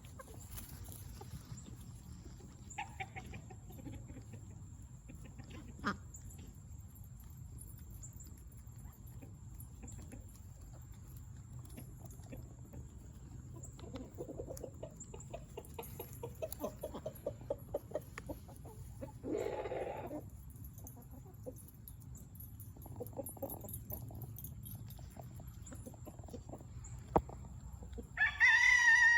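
Backyard chickens clucking, with scattered soft clucks, a denser run about halfway through and a short call soon after. Near the end a rooster starts crowing loudly.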